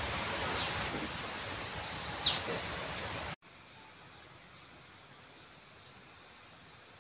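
Outdoor garden ambience: a steady high-pitched insect drone with two short falling bird calls. The level steps down about a second in, then drops abruptly about three and a half seconds in, leaving only a faint insect hum.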